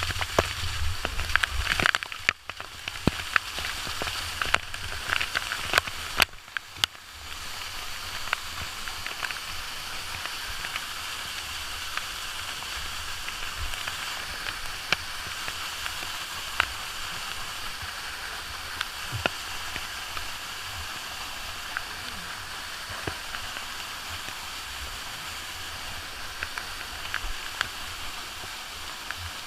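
Steady rush of a large waterfall, an even hiss of falling water with faint scattered ticks. In the first several seconds a low rumble sits under it, broken by two brief dropouts.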